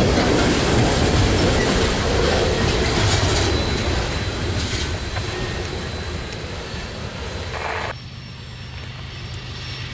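Loaded freight train of tank cars rolling past, steel wheels rumbling on the rails, fading as the last car goes by. It cuts off suddenly about eight seconds in, leaving a much quieter low, steady hum.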